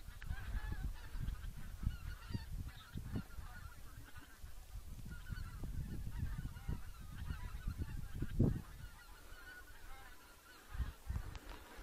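A flock of wild geese calling overhead in flight, a continuous chorus of many overlapping honks. Low rumbling thumps of wind and camera movement run underneath, the strongest about eight and a half seconds in.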